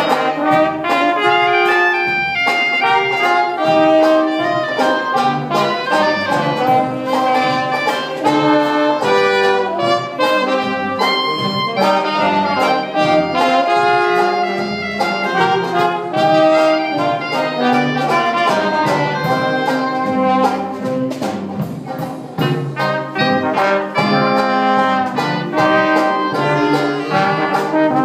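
A Dixieland jazz band playing live: trumpet and trombone lead together over drums that keep a steady beat.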